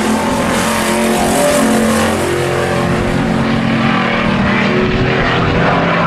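Several hobby-class pickup race trucks' engines running hard on the track together, their overlapping engine notes steady with small rises and falls in pitch.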